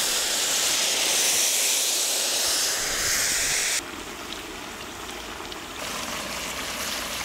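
Bone broth poured from a jug into a large pot of hot mutton masala: a steady splashing rush of water that stops abruptly about four seconds in, leaving a quieter sound, and the pouring picks up again near the end.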